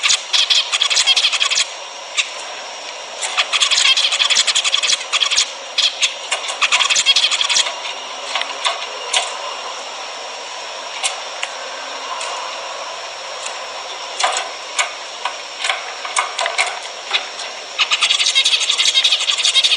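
A group of zebra finches calling, many short nasal beeps overlapping into a dense chatter. Busy stretches alternate with quieter spells of scattered single calls, and the dense chatter returns near the end.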